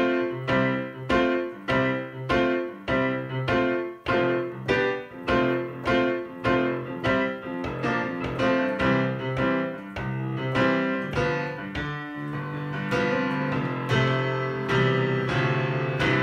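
Casio PX-S1000 digital piano being played, its piano voice sounding a repeated pattern of struck chords about two a second. In the second half the notes come faster and run together more smoothly.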